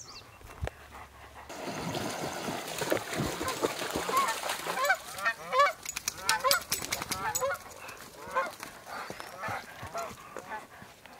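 Geese honking as they fly over, a rapid run of repeated calls that begins about two seconds in, is loudest in the middle and trails off toward the end.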